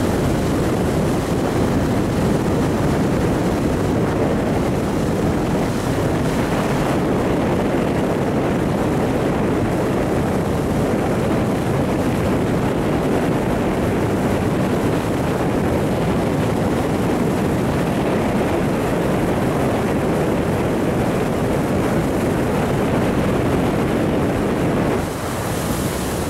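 Steady rush of wind on the microphone and water noise from a moving boat on a lake, dipping briefly about a second before the end.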